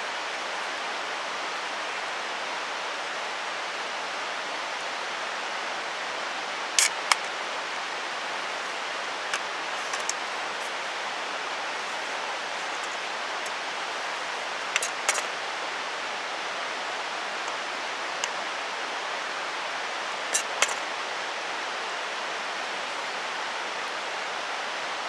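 Mountain stream rushing steadily, with a few short sharp clicks or knocks scattered through it.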